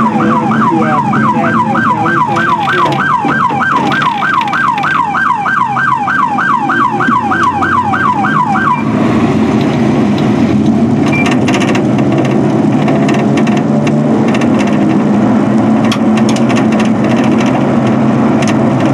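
Police car siren on a rapid yelp, each cycle falling in pitch, about three a second; it cuts off about nine seconds in. After that, steady vehicle engine and road noise with scattered clicks.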